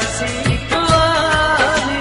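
Indian film-song music: a held, gliding melody line over a steady drum beat, with no lyrics sung.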